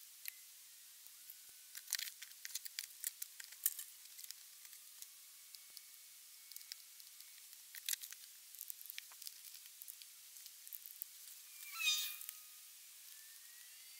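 Faint scattered clicks and light metallic ticks of small valve parts and a valve spring compressor being handled on a motorcycle cylinder head. Near the end comes a short high cry.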